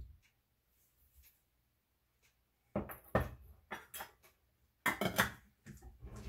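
Stainless steel saucepan set down on the counter and its lid put on: a run of knocks and metal clatters starting about three seconds in, loudest near five seconds.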